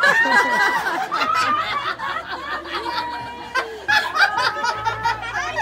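A group of people laughing and talking over each other, several voices at once.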